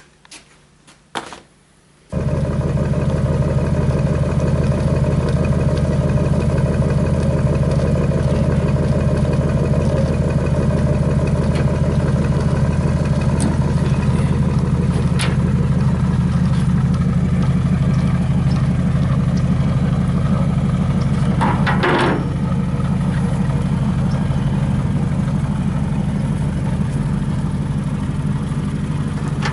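A machine with a low, steady hum starts abruptly about two seconds in and keeps running, with a brief sharper noise around twenty-two seconds in.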